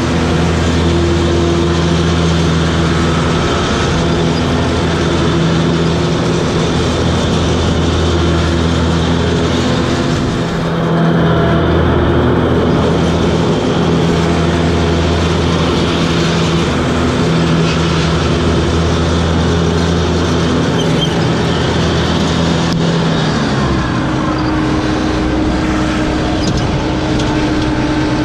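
Toro Groundsmaster 7210 zero-turn mower's engine running steadily under load with its rotary cutting deck, a continuous mechanical hum and whir. The engine note changes about 23 seconds in, when the low hum drops away and a higher steady tone takes over.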